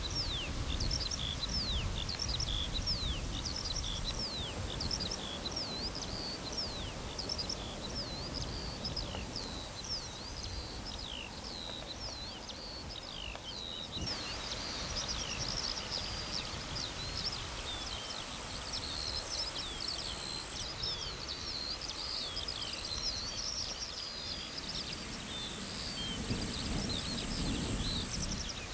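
Many small birds chirping and singing together in a dense, continuous chorus over a low rumbling noise. The sound changes about halfway through, and after that a steady high-pitched buzz comes and goes behind the birdsong.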